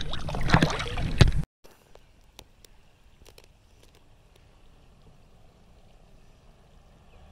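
Water splashing and sloshing against a jon boat's hull as a spotted bass is handled and let go at the surface. The splashing cuts off suddenly about a second and a half in, leaving only faint background with a few light clicks.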